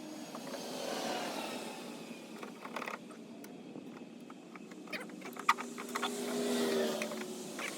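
Highway traffic going past: two vehicles swell and fade, their tones gliding gently. There are a few sharp clicks and knocks of parts being handled, the sharpest about five and a half seconds in.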